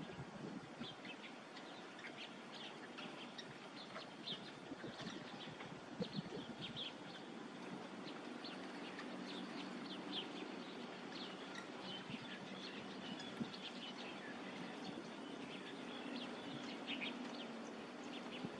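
Small birds chirping in many short, high calls, scattered irregularly, over a steady background hiss.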